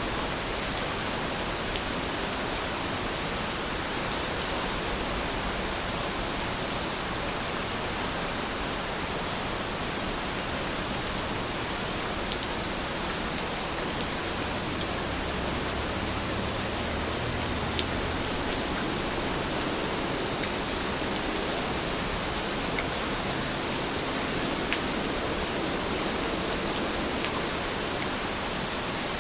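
Steady rain falling, an even hiss with no let-up, with a few faint sharp drop ticks scattered through it.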